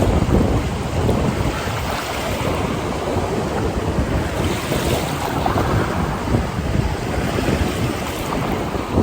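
Strong wind buffeting the microphone in steady gusts, with the rush of ocean surf underneath.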